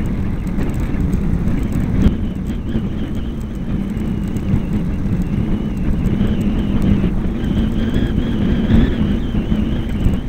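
Wind buffeting the microphone of a camera mounted on a bicycle, with a low rumble and rattle from the bike rolling over wet tarmac. There is a single knock about two seconds in, and a faint high whine joins in during the second half.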